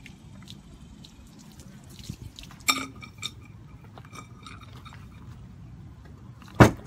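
A rubber toilet plunger stuck to a car's dented body panel is yanked off with one loud pop near the end, in the hot-water-and-plunger trick for pulling out a dent. Before it, about two and a half seconds in, comes a single metallic clink.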